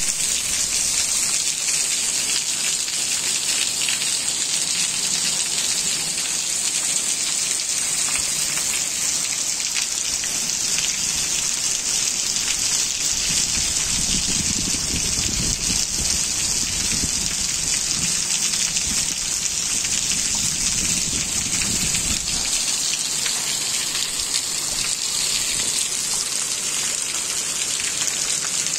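Heavy rain falling steadily on a flooded street and puddles, a constant hiss of drops splashing on water. A low rumble joins for several seconds midway.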